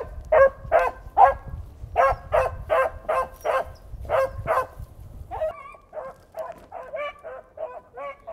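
A pack of beagles baying and yelping on a rabbit's scent trail, a quick run of barks about two to three a second, growing fainter about halfway through. The baying is the hounds' signal that they have opened on a rabbit and are running its track.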